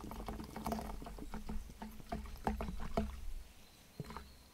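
Water pouring from a large plastic bottle into a plastic fermentation bucket of foamy wort, splashing irregularly; the pour eases after about three seconds.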